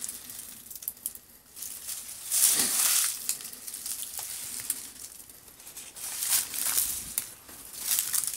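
Footsteps crunching and rustling over dry leaves and grit on a tiled floor, in several irregular bursts, the loudest a couple of seconds in.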